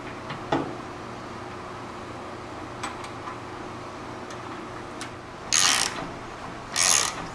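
Hand ratchet tightening the mounting bolts of a new upper control arm on a truck frame, in two short bursts of ratcheting about five and a half and seven seconds in. Before that, a few light clicks of metal parts as the arm is set in place.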